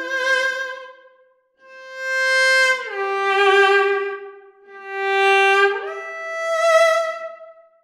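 Sample Modeling virtual solo bowed string instrument, played from a MIDI keyboard, in legato with portamento. A sustained note fades out about a second in, then two more phrases follow. In each, one bowed note glides smoothly into the next, downward in the first and upward in the second, the slow slide coming from a softly played overlapping note.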